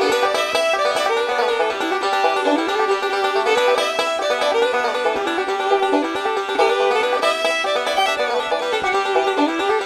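Background music: a fast plucked banjo tune in bluegrass style.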